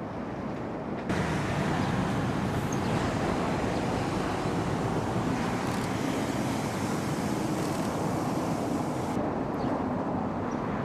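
Steady rushing outdoor noise with no distinct events, stepping up in level about a second in.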